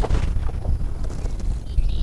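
A spinning rod being cast: a short hiss of line paying out at the start, then a spinning reel beginning to wind near the end. Wind buffets the microphone throughout.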